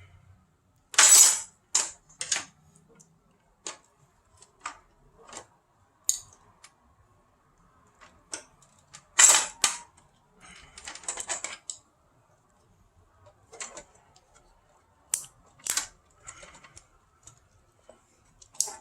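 Hard parts of a tower fan being handled and taken apart: scattered clicks, knocks and short clatters, with the loudest knocks about a second in and again about nine seconds in.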